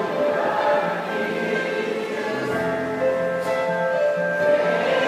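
Slow church worship music: long held chords with voices singing along, and a low bass note coming in about halfway through.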